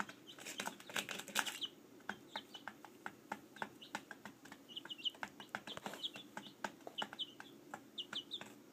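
Baby chicks peeping faintly in short, high chirps, among many small clicks and a low rustle. A burst of rustling, like wings flapping, lasts about a second near the start.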